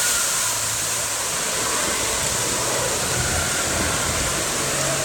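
Water jets on a waterpark play structure spraying and splashing down, making a steady rushing hiss.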